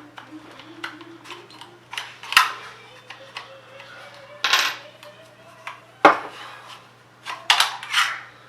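Metal parts of a Stoeger M3000 shotgun's trigger group clicking and clattering as they are handled and fitted back together, with sharper knocks about two and a half, four and a half and six seconds in and a quick cluster of clicks near the end.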